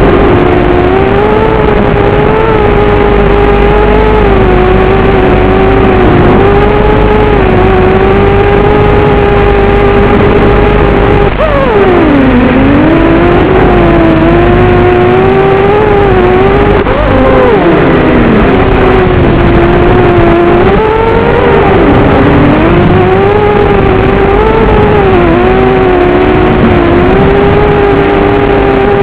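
FPV racing quadcopter's brushless motors whining loud and close, the pitch wavering up and down with throttle. About twelve seconds in, and again about five seconds later, the pitch sweeps sharply down and climbs back.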